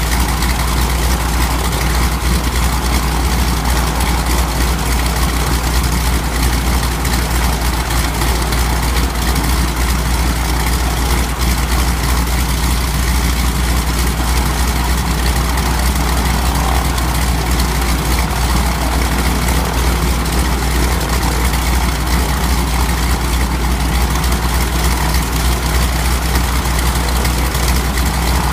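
Pratt & Whitney R-985 nine-cylinder radial engine idling steadily on a ground run after one of its cylinders was replaced.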